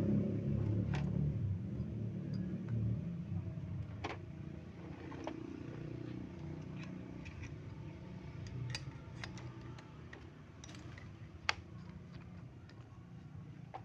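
Scattered light clicks and taps of hands handling the carburetor and its rubber intake boot on a small chainsaw, the sharpest click about three-quarters of the way through. Under them runs a low rumble that fades away.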